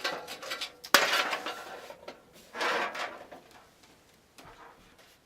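A computer case being handled: a sharp knock about a second in, followed by scraping and rattling, another stretch of scraping near three seconds, then fading away.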